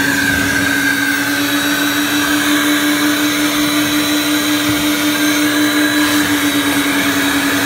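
Carpet extraction machine running steadily while enzyme solution is worked into a car's carpet: a constant motor hum with a hiss over it.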